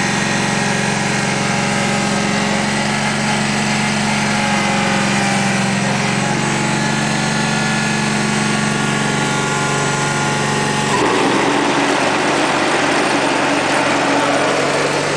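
Cub Cadet 782 garden tractor's engine running steadily while the tractor drives slowly; about eleven seconds in the engine note changes and becomes rougher.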